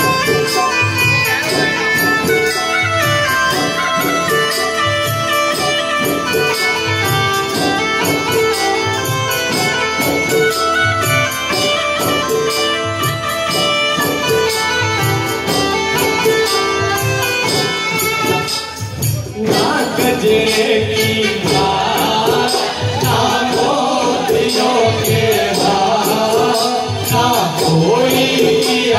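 Rasiya folk music: a frame drum (dafli) beating a steady rhythm under a melody of held notes, with a group of voices starting to sing about two-thirds of the way in.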